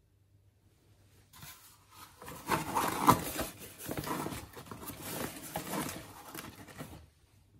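Irregular rustling, rubbing and scraping handling noise that starts about a second in and stops near the end, loudest in short bursts about three seconds in.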